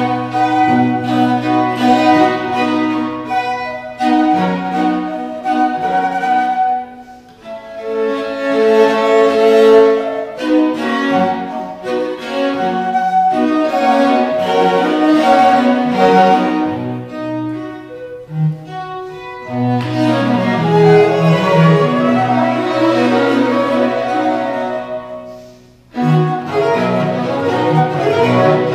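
A flute, violin, viola and cello play together as a live chamber quartet. The music thins out briefly about seven seconds in and breaks off for a moment near the end, then starts again.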